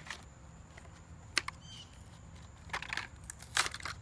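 Hot Wheels blister-pack packaging, plastic bubble and cardboard card, crackling and crinkling as it is pulled open by hand, in irregular sharp crackles that are loudest about one and a half and three and a half seconds in.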